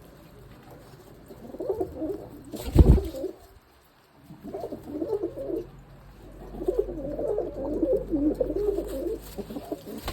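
Tusi pigeons cooing in three bouts, the last one long, the sound of pigeons being paired. A loud thump about three seconds in.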